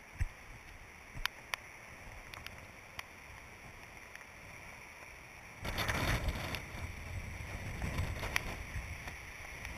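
Wind and handling noise on an action camera's microphone: a faint steady hiss with a few light clicks, then a louder rushing gust that lasts about four seconds from a little past halfway.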